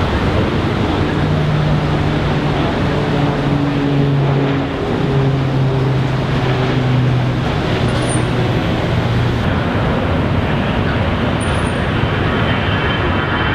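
Jet airliner departing: a loud, steady roar of engines at takeoff thrust, with a low hum that steps down slightly in pitch over the first nine seconds and a higher buzzing engine tone coming in near the end.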